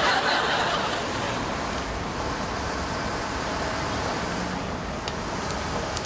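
Steady street traffic noise, a little louder in the first second and then even.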